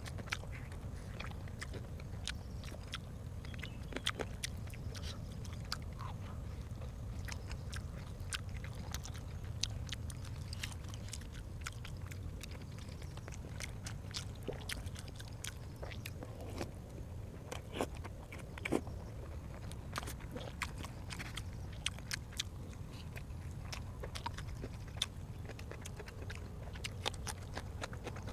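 A person chewing and eating, with many irregular short wet clicks, smacks and crunches from the mouth over a steady low hum.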